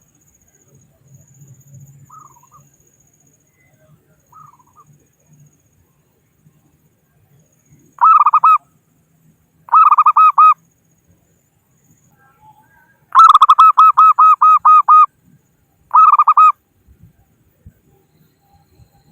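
Zebra dove (perkutut) calling: four loud bursts of rapid, evenly repeated cooing notes, the third and longest running about two seconds. Two faint short calls come a few seconds before them.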